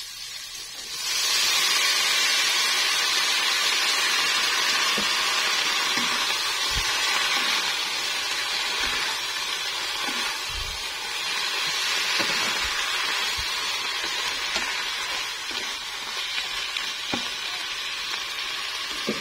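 Water spinach (kangkong) leaves frying in a hot wok. The sizzle jumps loud about a second in as the leaves go in, then keeps up steadily, with scattered soft knocks from the spatula stirring them.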